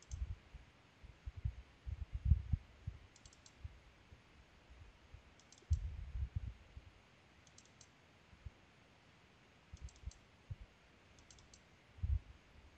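Computer mouse clicking: quick double-clicks, in pairs and triples every couple of seconds, opening folders one after another. Dull low thumps come in between.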